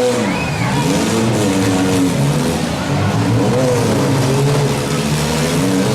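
Several six-cylinder demolition derby cars' engines running and revving together, their pitches rising and falling as the drivers get on and off the throttle.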